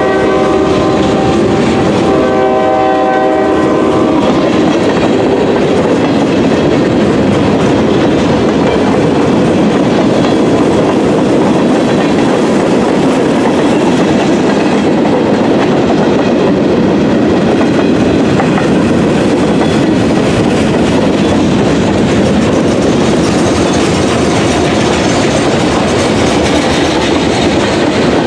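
Freight train rolling past: the steady rumble and clatter of boxcars and covered hoppers on the rails. A locomotive's multi-tone air horn is heard near the start, cutting off just after it begins, and blows again for about two seconds starting two seconds in.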